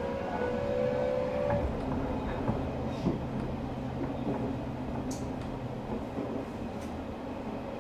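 Odakyu 3000 series electric train running, heard from on board: the whine of its Mitsubishi IGBT inverter and totally enclosed traction motors rises in pitch and cuts off about a second and a half in, as the train stops taking power and coasts. After that come a steady wheel-on-rail rumble and a few sharp clicks.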